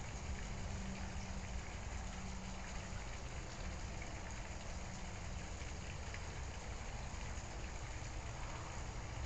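Steady, even hiss with a low rumble beneath it, unchanging throughout.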